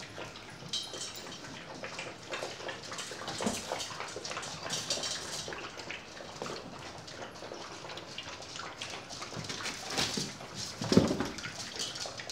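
A litter of puppies eating together from one bowl: a steady run of wet lapping, chewing and small clicking sounds, with a short louder noise about eleven seconds in.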